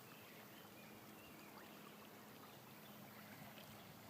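Near silence: a faint, steady flow of river water.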